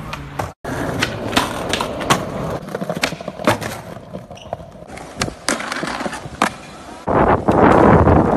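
Skateboard sounds: wheels rolling on hard ground, broken by several sharp board clacks from pops and landings. About seven seconds in, a loud steady grinding starts as the board slides along a concrete skatepark ledge.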